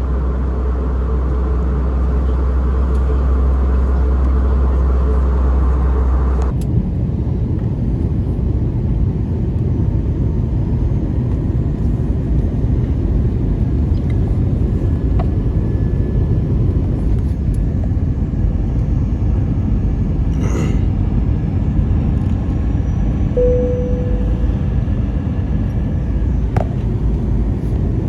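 Airbus A321 cabin noise during descent: the steady rumble of engines and airflow. About six seconds in, the sound changes abruptly as a deep low hum and a steady tone drop out, leaving a rougher rumble. A brief tone sounds once near the end.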